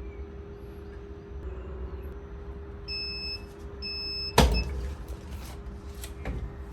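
Heat press timer beeping twice, two long beeps about a second apart that mark the end of the press time, then a loud clunk as the press is opened, over a steady hum.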